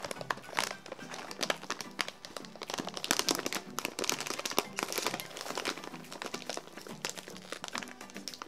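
Plastic snack bag of bread chips crinkling and crackling as it is handled and opened, with dense, irregular crackles.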